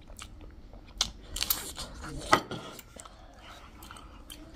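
Close-up eating sounds of chatpate, a spicy puffed-rice snack: chewing and crunching with spoons clicking on the plates, scattered short clicks with the sharpest a little over two seconds in.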